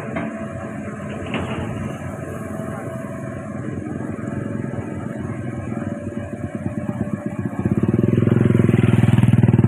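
Hitachi Zaxis 110 excavator's diesel engine running steadily, then revving up and getting much louder about eight seconds in.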